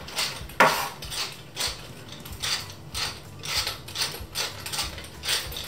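Pepper mill being twisted, grinding peppercorns in a steady series of short grinding clicks, about two or three a second.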